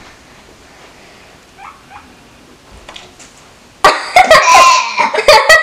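Quiet room tone for nearly four seconds, then a girl breaks into loud laughter in quick bursts as she reacts to the taste of baby food.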